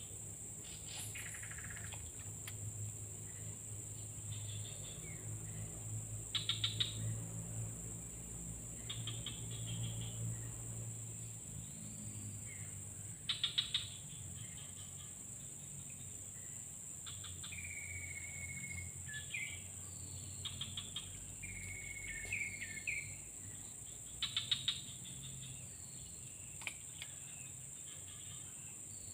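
Outdoor ambience of insects and birds: a steady high-pitched insect drone, broken by a few short trills of rapid chirps, and two brief whistled bird calls near the middle.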